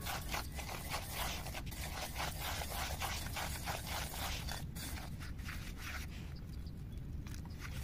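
Fingers stirring and rubbing dry, grainy fishing groundbait in a stainless steel bowl, the grains scraping against the metal in a quick run of short strokes that thin out near the end.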